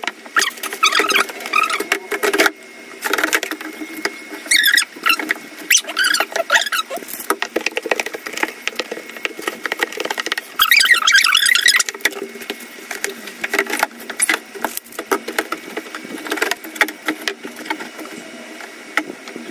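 A cloth scrubbing a white plastic drawer: brisk rubbing strokes with repeated short squeaks of the cloth dragging on the plastic, in bursts that stop and start, the longest and loudest about ten seconds in.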